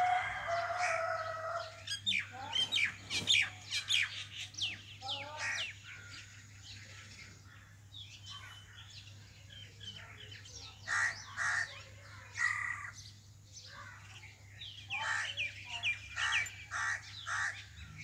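Common mynas calling from a tree: bouts of varied chattering, clicks, whistles and harsh notes, separated by quieter gaps, with a longer held call at the start.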